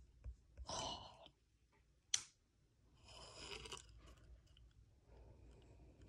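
Faint rustling handling noises in a quiet room, with a single sharp click about two seconds in.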